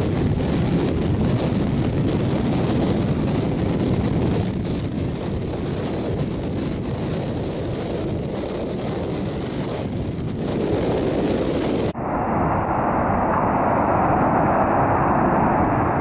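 Wind blowing on the microphone over storm surf breaking on the shore, a loud steady rush. About twelve seconds in it cuts abruptly to a duller recording of the same surf and wind.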